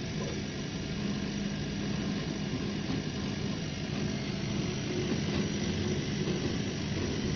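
An 80 W laser engraving machine running while it engraves plywood: a steady machine hum.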